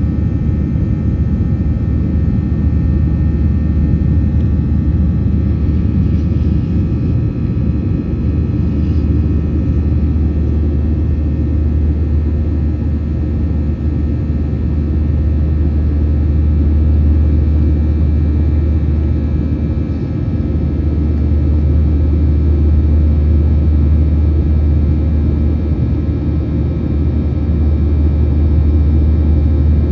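Boeing 737-800's CFM56-7B turbofan engines heard from inside the cabin over the wing during the climb after takeoff: a steady low drone with many steady whining tones layered above it.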